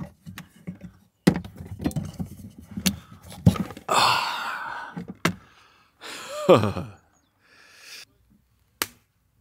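Plastic clip holders clicking and knocking as a Fiskars axe is unclipped from its wall mount and pulled out, with rustling of the handle and clothing in between. A short falling tone comes about two-thirds of the way in.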